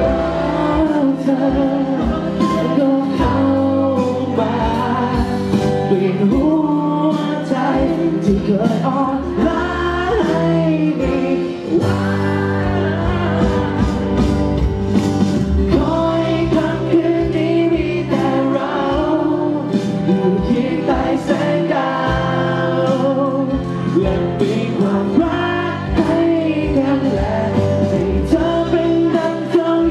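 Male lead vocalist singing a pop song live into a handheld microphone over a full band, with sustained chords and a steady drum beat.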